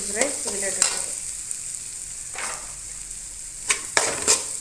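Chopped onion and tomato masala sizzling in a metal kadai while a spoon stirs it, with a steady frying hiss. Several sharp scrapes and knocks of the spoon against the pan come near the end.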